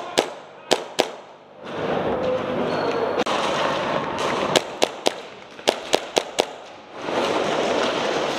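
Airsoft guns firing: sharp cracks, four within the first second, then a quick string of about seven more shots between about four and a half and six and a half seconds in, over a rustle of movement.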